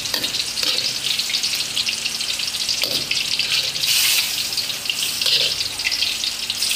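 Thin layer of tom yam broth sizzling on the bottom of a hot wok as the soup is ladled out, with a steady crackle and a few louder moments as the metal ladle scoops through the wok.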